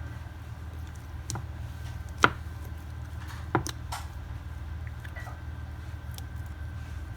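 Hand-mixed slime squishing, with a few sharp wet pops and clicks, the loudest about two seconds in, over a steady low hum.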